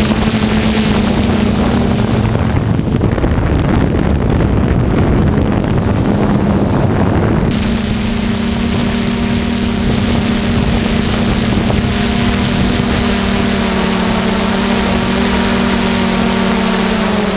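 DJI F550 hexacopter's electric motors and propellers droning with a steady hum, mixed with wind noise on the onboard microphone. The hiss thins for a few seconds and then comes back abruptly about halfway through.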